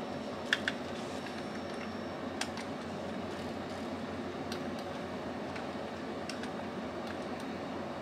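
Round-keycap DIVIPARD wireless keyboard being typed on: sparse, soft key taps, not so loud, over a steady background hum. Two sharper clicks come about half a second in.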